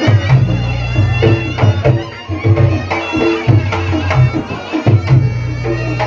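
Reog Ponorogo gamelan accompaniment: hand drums struck in a quick, busy beat over low steady gong tones, with the reedy slompret shawm in the mix.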